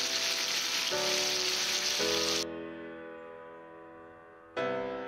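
Chicken drumsticks sizzling and bubbling in a frying pan, a loud even hiss that cuts off suddenly about halfway through. Piano music plays underneath and carries on alone after the sizzle stops.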